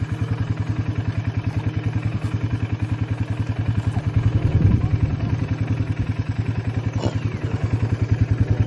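Four-wheeler (ATV) engine running at low speed, an even rapid pulsing exhaust note, swelling briefly about halfway through.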